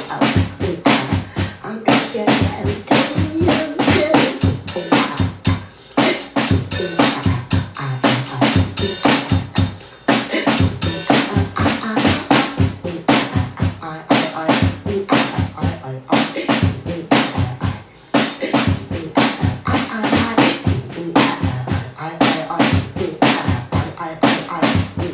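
Music: a steady drum beat with bass drum and snare hits, dropping out briefly a few times.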